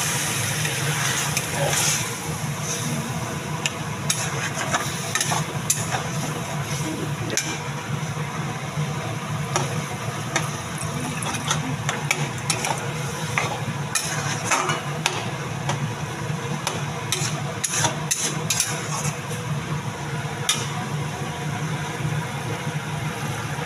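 A metal spatula stirring and scraping in a kadai, with frequent light clinks, as pakoras and greens sizzle and bubble in water just added to the pan. A steady low hum runs underneath.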